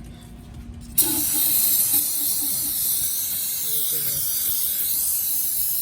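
Aerosol can of brake cleaner spraying in one continuous hiss of about five seconds, starting abruptly about a second in, cleaning oil off the oil filter mounting area.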